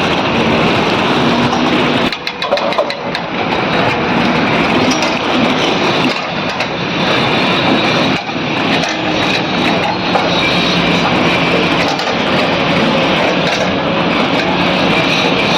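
Heavy diesel engines of excavators running and working together, a loud steady mechanical din.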